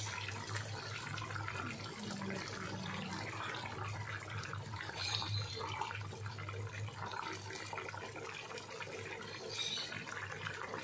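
Coconut-milk vegetable stew simmering in a wok and being stirred with a plastic spatula: wet sloshing and bubbling over a steady low hum.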